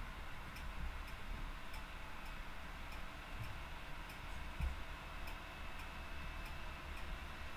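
Faint, regular ticking, a little under two ticks a second, over a low steady hum of room noise.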